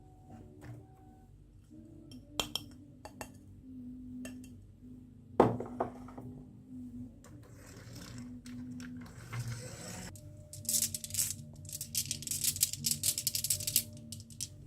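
Marbles clicking and clattering down a toy marble run track. A few separate clicks and a sharper knock come about five seconds in, then a quick run of dense clattering from about ten to fourteen seconds, as marbles pour down together. Soft background music plays underneath.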